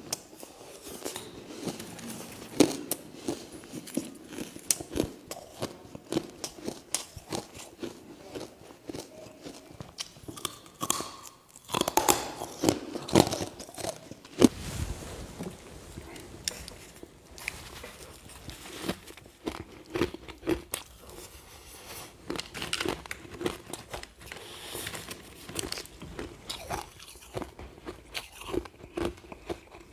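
Person biting and chewing ice, close to the microphone: a dense, irregular run of sharp crunches, loudest about twelve to fourteen seconds in.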